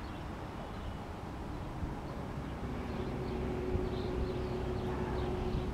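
Low, steady outdoor rumble, typical of wind on the microphone, with a steady two-tone motor hum coming in about three seconds in, plus faint high chirps.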